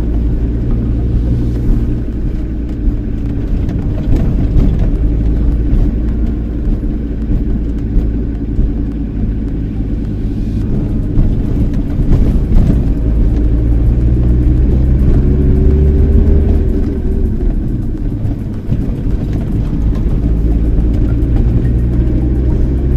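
Inside the cab of a 1990s VW T4 Caravelle van on the move: the engine runs under a steady road and tyre rumble, its pitch rising and falling with speed. A few brief knocks are heard over it.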